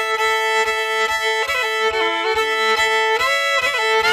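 Solo fiddle playing a quick tune with the bow: one steady note rings throughout while shorter notes shift above and below it.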